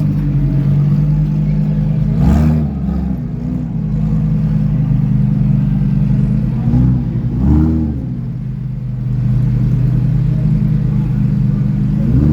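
Lamborghini supercar engine idling, with several quick throttle blips that each rise and fall in pitch.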